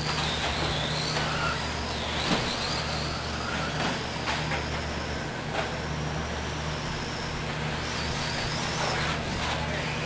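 Electric RC buggy's brushless motor whining, its pitch rising and falling with the throttle as the car laps the track. There are a few sharp clacks along the way, over a steady low hum.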